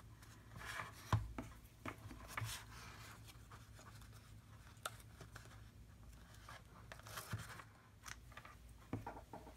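Faint rustling and light ticks of cardstock and thin ribbon being handled as the ribbon is threaded through the top of a paper box and tied, then scissors snipping the ribbon ends near the end.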